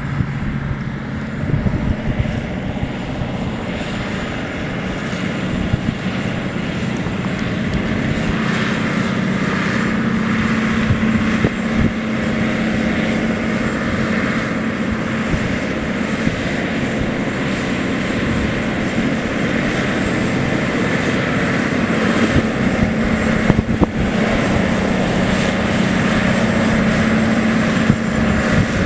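John Deere 9630 4WD tractor's 13.5-litre six-cylinder diesel engine running steadily as it pulls two scrapers, a continuous drone that grows gradually louder as the tractor comes nearer.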